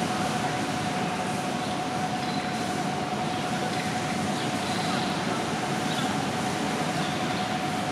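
Railway station platform ambience: a steady rumbling hum with a constant whining tone over it, typical of a standing electric train, and faint distant voices.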